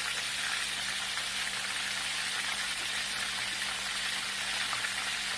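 Hot oil sizzling steadily around a whole grouper (lapu-lapu) shallow-frying in a wok.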